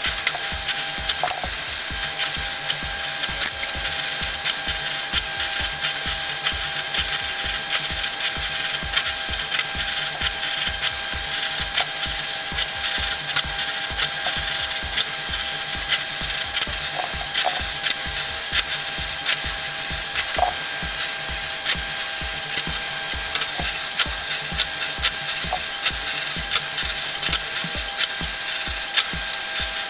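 Bench drill press running steadily, with a steady whine and a rapid, even clicking rattle, while holes are drilled one after another in a thin metal sheet.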